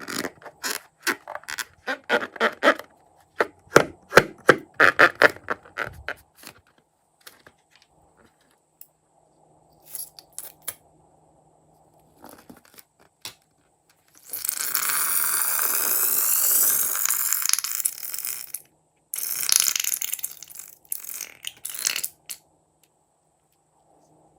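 Slime being squished and worked by hand, with quick wet clicks and pops for the first several seconds. About halfway through, a loud sputtering, hissing stretch of about four seconds follows, then a few shorter bursts.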